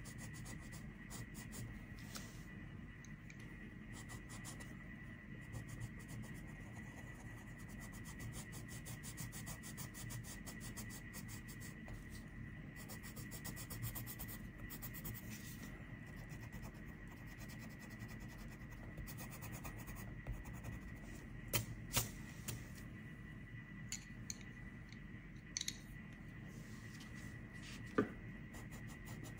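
Coloured pencil scratching on paper in quick, continuous strokes over a steady low hum, with a few sharp clicks near the end.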